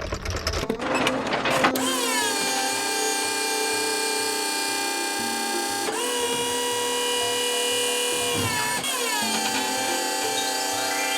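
Power-tool sound effect: a high, steady motor whine like an electric drill or grinder, starting with a rough, noisy stretch and then dipping in pitch and picking back up about three times. A faint steady beat of background music runs underneath.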